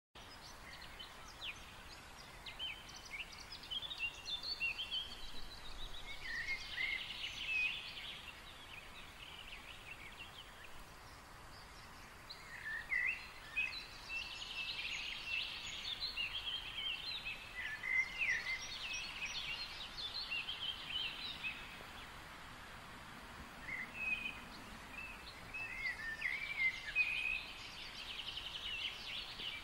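Small birds chirping and twittering in quick runs of short high notes, coming in several spells, over faint steady outdoor background noise.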